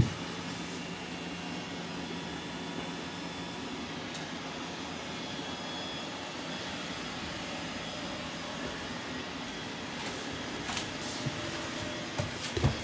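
Steady background hum of a quiet room, with one sharp click at the very start and a few light knocks near the end.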